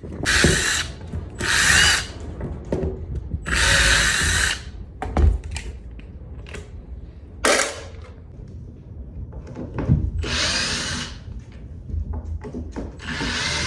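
Power drill running in about six short bursts, driving screws out of a chicken-coop floor.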